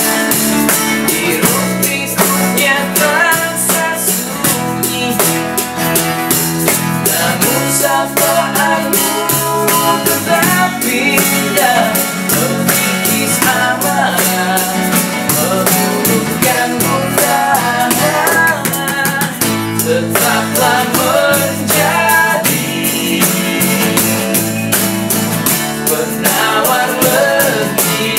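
Acoustic pop band playing live: two strummed acoustic guitars and an electric bass, with drums hit with sticks and an egg shaker keeping a steady beat, under a male lead vocal.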